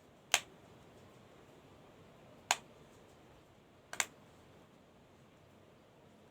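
Three sharp clicks, about a second and a half to two seconds apart, the last one doubled, as parts of a mobile phone are handled and snapped into place during repair.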